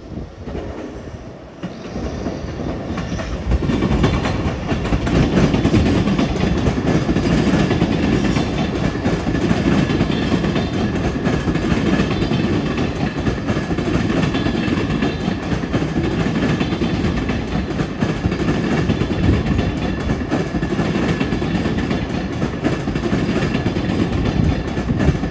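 Long Island Rail Road electric multiple-unit commuter train passing close by. The sound builds over the first few seconds, then holds steady and loud as the cars go past.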